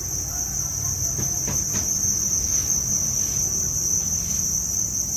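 Mass chorus of adult crickets at breeding age chirping in farm rearing bins: a steady, high-pitched trill that never pauses, with a low rumble underneath.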